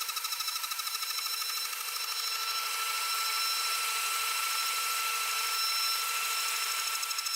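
CNC spindle with a single-flute endmill milling 5083 aluminium plate in a trochoidal path: a steady high whine with a pulsing cut a few times a second. The pulsing smooths to an even whine in the middle and returns near the end.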